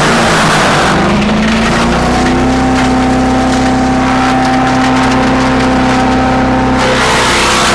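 Earthquake wood chipper's small gas engine running at speed; just after the start its pitch sags under load with a burst of chipping noise, then climbs back over a second or so, and another burst of chipping noise comes near the end.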